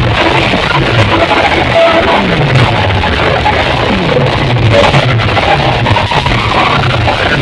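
Loud DJ competition music with a heavy bass line that slides downward again and again, about once a second.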